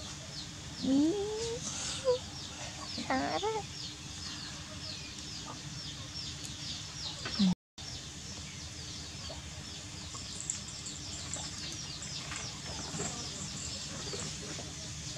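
Chickens in the background: a couple of rising calls about one and three seconds in, over steady high chirping.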